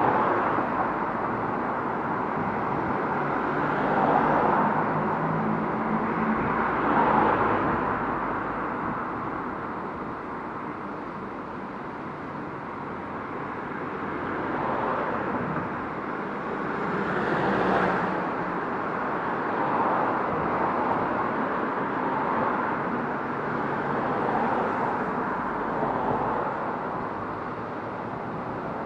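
Street traffic: cars driving past one after another, each swelling and fading over a steady background rush.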